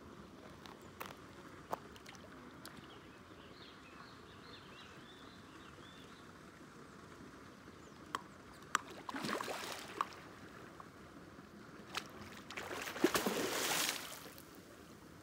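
A hooked fish thrashing and splashing at the water's surface during the fight, in two bursts about nine and thirteen seconds in, with a few sharp clicks scattered through.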